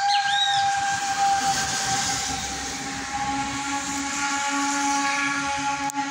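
Steam whistle of Baldwin steam locomotive No. 42 blowing one long, steady blast with steam hissing around it; about halfway through a second, lower note joins the whistle. A sharp click near the end.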